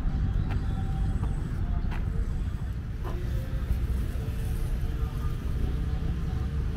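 Steady low rumble of distant road traffic, with a few faint clicks over it.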